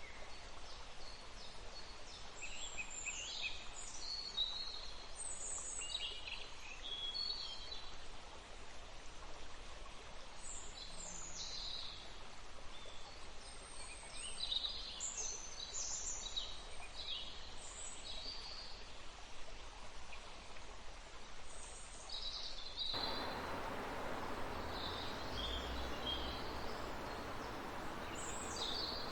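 Forest birds chirping and calling in short, repeated phrases over the steady rush of running river water. About 23 seconds in, the water noise suddenly becomes louder and fuller.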